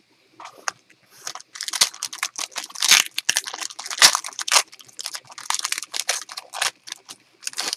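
Plastic wrapper of a trading-card pack being torn open and crinkled in the hands: a run of irregular crackling and ripping.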